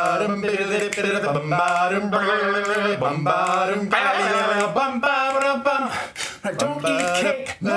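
A cappella male voices, one man's voice multitracked, singing wordless close harmony with no instruments.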